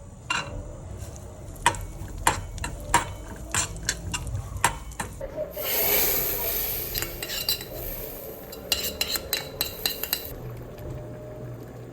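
A metal spoon stirring and clinking against a cooking pot, with a run of sharp knocks. About halfway through, a hissing sizzle starts and lasts around five seconds, with more clinks near its end.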